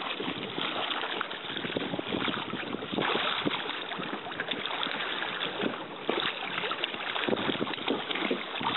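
Sea water splashing and sloshing irregularly around a diver moving in the water beside an inflatable boat.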